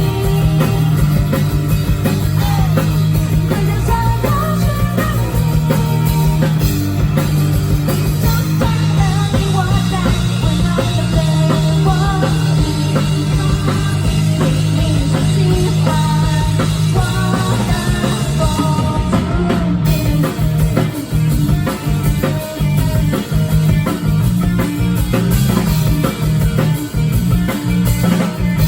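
Live rock band playing: a woman singing over electric guitar and drum kit. About two-thirds of the way through, the singing drops out and the band carries on without it, with the drums more to the fore.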